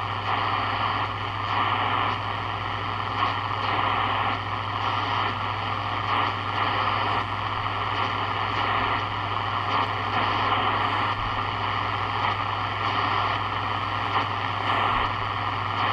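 Sony ICF-7601 portable shortwave radio putting out steady static hiss from its speaker while tuned to an empty band around 17.5–18 MHz, with a constant low hum underneath: no stations coming in.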